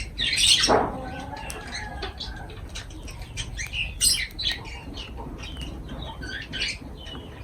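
Lovebirds chirping in quick, overlapping calls, with a loud, harsh squawk about half a second in and another sharp, loud call about four seconds in.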